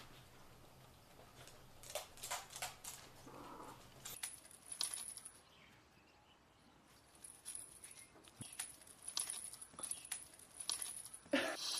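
Quiet background with scattered faint clicks and rustles; a faint low hum in the first few seconds gives way to a steady high-pitched tone for the rest.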